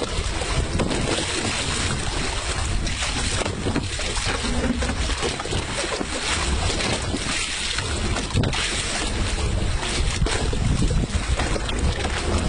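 Wind buffeting the microphone over the rush of water aboard a boat at sea, a steady, fluctuating noise with no distinct events.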